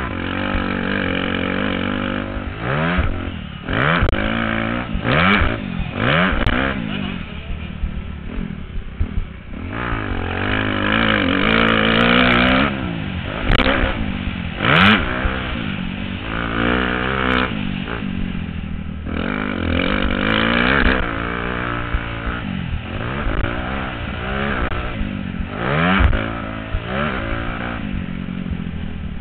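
125 cc motocross bike engine revving hard and dropping off again and again, its pitch climbing and falling many times, heard through a helmet camera's microphone with some rattling clatter.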